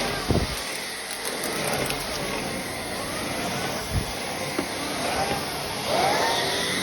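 Miele Cat and Dog Plus canister vacuum cleaner running on carpet through a turbo brush head. Its whine rises and falls again and again, with a few dull knocks.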